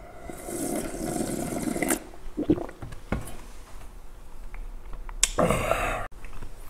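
Slurping gulps of ice-cold naengmyeon broth drunk straight from a stainless steel bowl, then two short knocks as the bowl is set down. Near the end comes a loud, rough open-mouthed exhale, the reaction to the icy broth.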